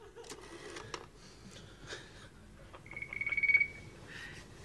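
A telephone ringing in one short, fast-trilling burst of about a second, after a few faint clicks.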